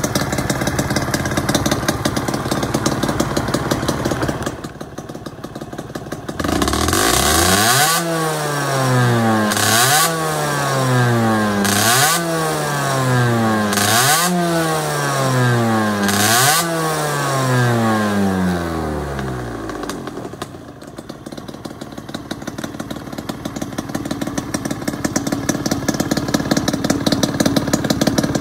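Suzuki RG50Γ's 49 cc single-cylinder two-stroke engine idling, then revved in five sharp throttle blips about two seconds apart from about seven seconds in, the revs falling back after each. It settles back to a steady idle for the last several seconds.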